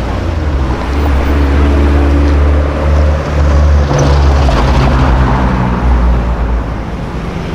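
Sports car engine running close by with a deep, steady exhaust note, getting a little louder about a second in.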